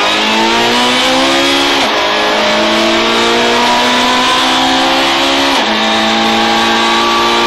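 Rally car engine at full throttle, heard from inside the cabin, its note climbing steadily as it accelerates, with an upshift about two seconds in and another near the end.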